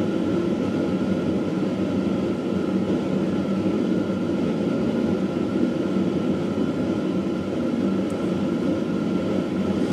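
Steady mechanical drone of a fan-type machine running, with a faint steady whine in it.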